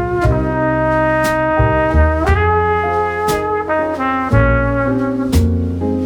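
Background music: a melody of held notes changing every second or so over a bass line, with sharp percussion hits at a regular beat.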